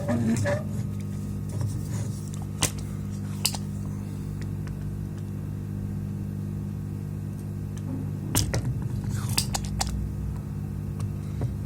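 Steady low electrical hum with a few sharp clicks of small tools and parts handled on a workbench during circuit-board soldering work.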